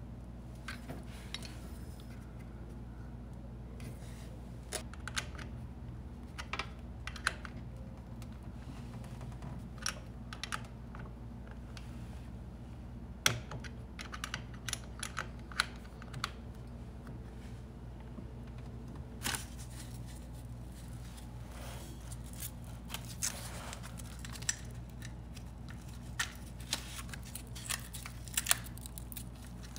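Scattered light clicks and taps of small metal hardware as battery cable terminals are screwed onto the posts of a small 12-volt sealed lead-acid battery, over a steady low hum. Near the end a hook-and-loop strap is pulled over the battery and pressed down.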